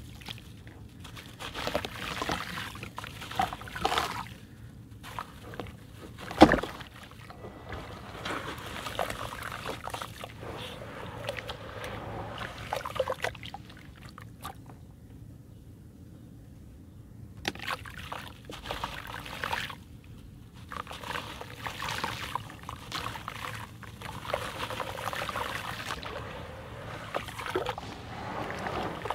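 Hands dipping a porous chalky block into muddy water in a tub and squishing the wet crumbled slurry, giving irregular sloshes, splashes and squelches. A single sharp thump, the loudest sound, comes about six and a half seconds in, and the sloshing falls quiet for a few seconds past the middle.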